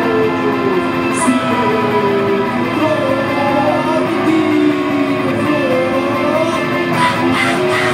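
Live electric guitar music, a melody of held notes that glide in pitch. Near the end, sharper strummed attacks come in.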